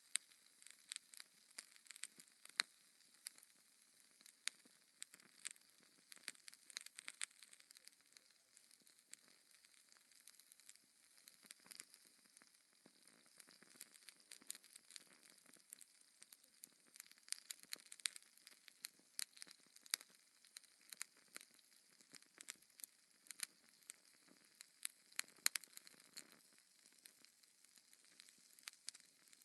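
Wood fire of burning logs crackling: frequent, irregular sharp pops and snaps over a faint, steady hiss.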